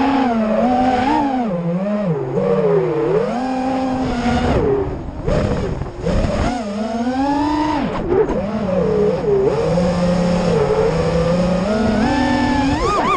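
FPV freestyle quadcopter's motors and propellers whining, the pitch rising and falling constantly with the throttle, easing off briefly about five seconds in and sweeping sharply up near the end.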